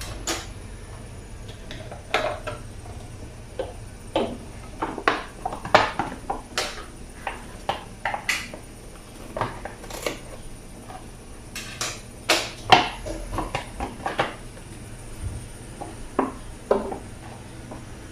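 Hard objects being handled, making irregular clinks and knocks, some single and some in quick clusters, busiest in the middle.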